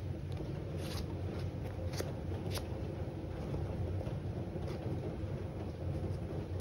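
Steady low rumble of rain, with a few light taps and scrapes as small labelled blocks are slid around a wooden tray.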